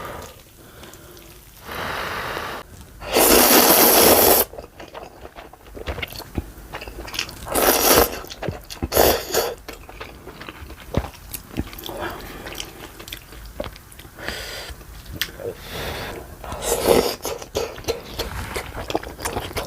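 Close-miked eating sounds: a long slurp of ramen noodles about three seconds in, then shorter slurps, chewing and crunching.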